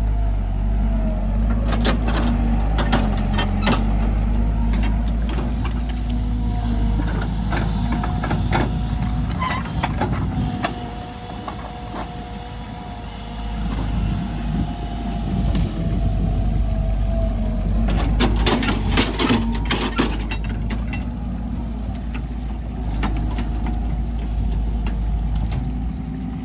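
Tracked excavator's diesel engine running under load with a steady hydraulic whine, and sharp clanks and knocks as the bucket digs mud, in clusters a couple of seconds in and again near the end. The engine eases off briefly around the middle.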